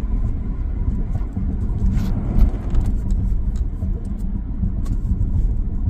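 A Lexus GS350's 3.5-litre V6 running through an aftermarket axle-back exhaust while driving, heard from inside the cabin: a steady low drone blended with road rumble, without revving.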